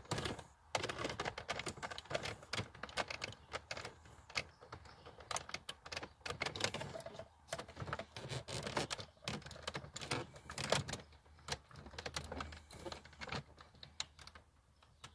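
Small plastic clicks and rattles, many short irregular clicks, as hands work the wiring connectors loose from the back of a Renault 9 Broadway's plastic instrument cluster.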